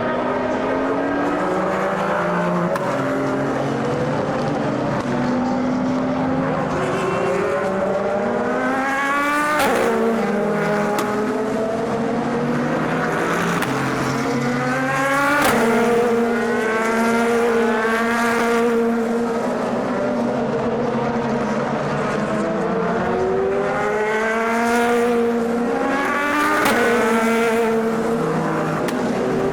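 Several endurance race cars running at full throttle, one after another, their engine notes climbing steadily in pitch and dropping sharply at upshifts.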